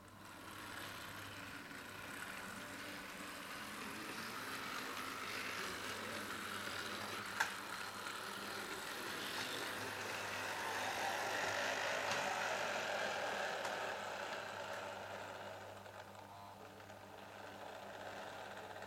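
HO-scale model electric train running on sectional track, its motor and wheels making a steady rolling noise. The noise builds, is loudest about two-thirds of the way through, then fades. There is one sharp click a little before halfway.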